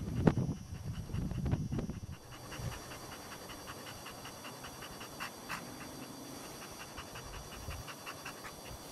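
A dog panting hard, quick and rhythmic, with its tongue out. A few low thumps and rumbles sound in the first two seconds.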